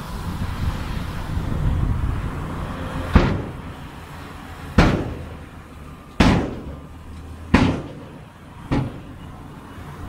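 A heavy diesel earthmoving machine runs with a low rumble, then five loud bangs come about a second and a half apart, each ringing off briefly.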